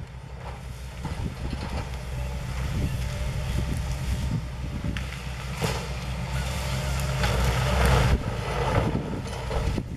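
Diesel engine of a JCB JS220 forestry excavator working under load, its note growing louder, with bursts of crashing and cracking from the Kesla harvester head and the tree it is felling, loudest about eight seconds in.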